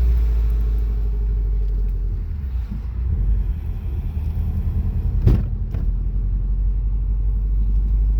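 Subaru Legacy driving, a steady low rumble of road and engine noise, with a sharp knock about five seconds in and a fainter one just after.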